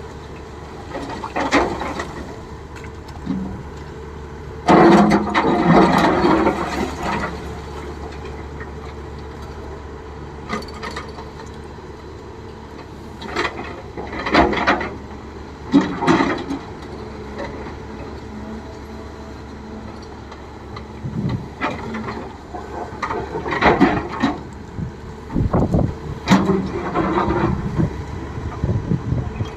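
Excavator engine running steadily, with several bursts of scraping and clatter as the bucket works through ore and rock.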